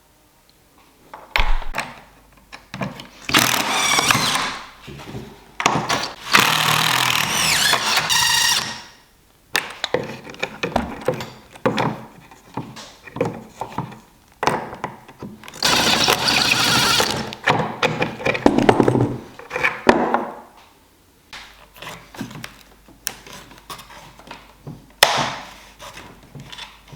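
Hand work taking apart an old ash table: wooden knocks and thunks, mixed with several harsh grating stretches of a second or two, typical of prying joints and nails loose.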